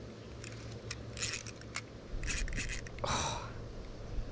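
Small budget spinning reel being wound, with clicking and scraping from the handle and rotor as the line is retrieved. About three seconds in, a short buzzing sound falls in pitch.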